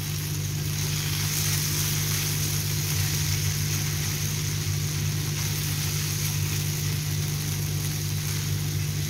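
Boiled vermicelli frying in desi ghee in a nonstick pan, sizzling steadily as a silicone spatula stirs and spreads it, over a steady low hum.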